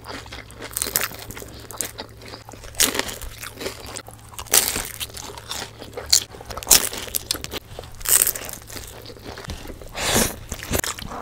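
Crispy fried lumpia (spring rolls) being bitten and chewed up close to the microphone: a run of irregular sharp crunches, with softer chewing between them.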